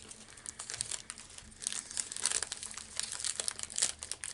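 Plastic snack wrapper crinkling as it is handled: a run of small irregular crackles that gets busier after about a second and a half.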